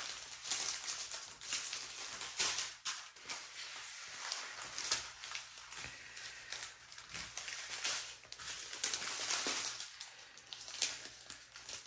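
Small plastic bags of diamond-painting drills crinkling and rustling as they are picked up and laid out by hand, in irregular crackles.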